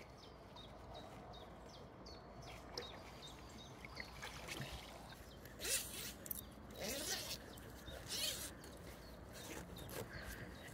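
Wet mesh carp retainer sling rustling as it is lifted and unzipped, in several short bursts from about six seconds in, after faint bird chirps in the first few seconds.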